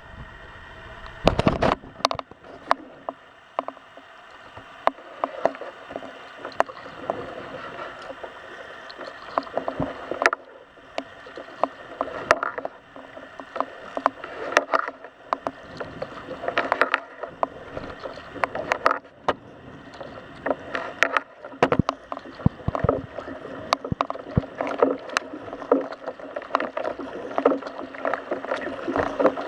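Kayak paddling: paddle strokes splashing and dripping water, with many irregular sharp clicks and knocks and a louder burst about a second and a half in.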